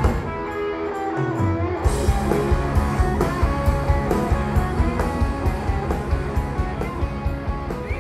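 Live rock band playing, led by electric guitar. For the first two seconds the drums drop out, then they come back in with a steady beat under the guitar and bass.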